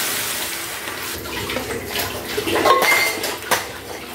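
Gravy poured onto hot tempering in a steel kadai, its sizzle dying away over the first second, then a steel ladle scraping and clinking against the pan several times as the kuzhambu is stirred.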